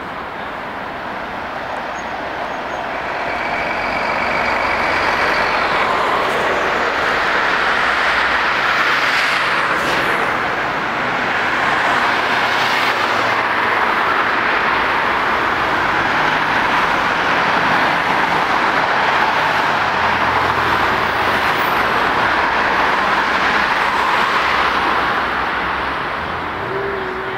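Steady city traffic noise: cars and buses passing on a busy multi-lane road, rising a few seconds in and easing off near the end.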